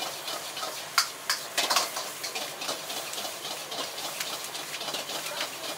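Gas wok burners hissing steadily while egg fried rice is stir-fried, with metal ladles knocking and scraping against the carbon-steel woks, a cluster of sharp clanks between one and two seconds in.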